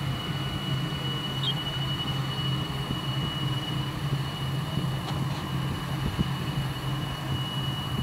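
A steady low engine hum, unbroken and unchanging in pitch, over a faint background rush.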